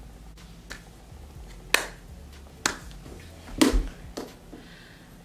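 Lips smacking and popping apart as freshly applied tinted lip balm is pressed in: about five sharp wet smacks, the loudest two about two seconds apart.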